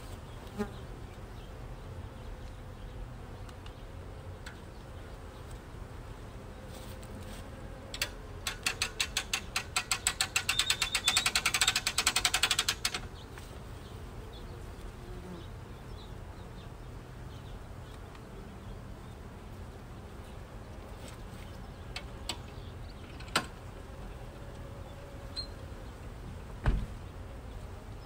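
Honeybees buzzing around the hives. About eight seconds in, a rapid ratcheting clatter runs for about five seconds, getting faster, as the hive lift's winch is cranked. A few single knocks follow near the end.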